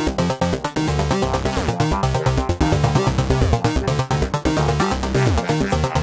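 Background music: an upbeat instrumental with a steady, fast beat and a moving bass line.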